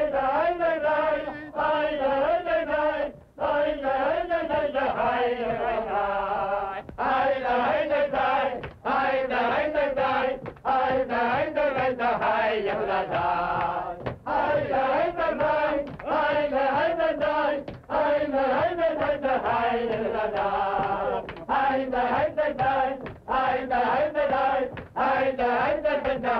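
Men's voices chanting a melody together in loud, wavering phrases with short breaks between them, on an old film soundtrack with no high treble.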